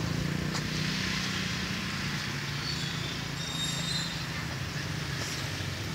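Steady low engine hum under an even hiss, like a motor vehicle running, with a few faint high tones about three to four seconds in.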